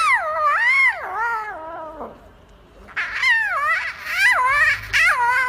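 Cat yowling: a long wavering call that sinks in pitch over about two seconds, then after a short pause a second, wobbling up-and-down yowl.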